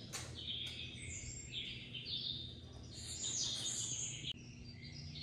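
Small birds chirping and twittering almost without pause, several high-pitched calls overlapping, with a faint steady low hum beneath and a single click just after the start.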